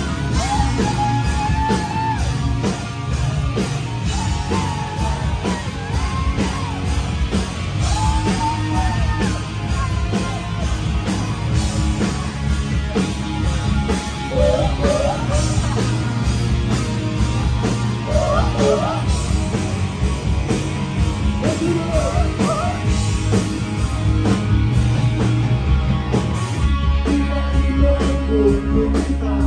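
A rock band plays live with electric guitars, bass, drums and a lead singer, loud and continuous.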